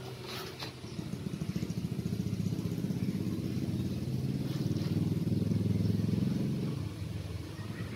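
A motor vehicle engine going past, a fast low throb that grows louder and then fades away about seven seconds in.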